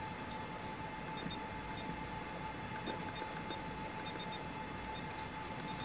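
Steady background hiss with a constant faint tone, broken by faint short high beeps from the ACTAtek terminal's keypad as keys are pressed.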